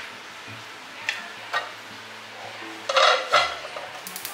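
Cut garlic and onion being put into a nonstick cooking pot: a couple of light taps, then a louder clatter of pieces and utensil against the pot about three seconds in. Near the end a fast, even ticking starts.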